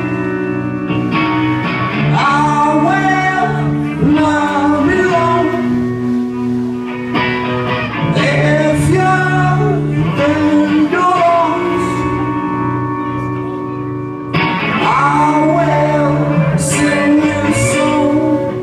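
A live band playing a song: electric guitars and drum kit with cymbal crashes, under a sung vocal line.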